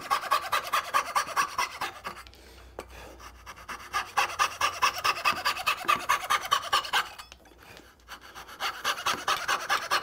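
Coping saw cutting quickly across the waste between dovetails, at about five or six rasping strokes a second. The sawing stops twice for a second or two.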